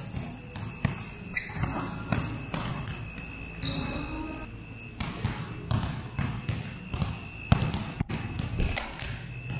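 Basketballs being dribbled on an indoor court floor: a quick, irregular run of bounces, busier from about halfway through.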